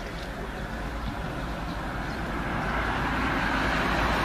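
Vehicle noise: a rushing hiss over a low rumble that grows steadily louder.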